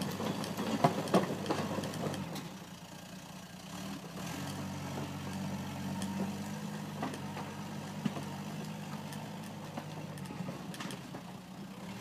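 Skidozer 252 snowcat's engine running steadily at low speed, with a few sharp knocks in the first couple of seconds.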